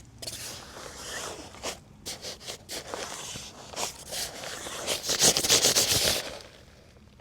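Scraping and rustling as the inflated nylon air mattress is handled and rubbed, in irregular strokes that grow denser and loudest about five to six seconds in, then die away near the end.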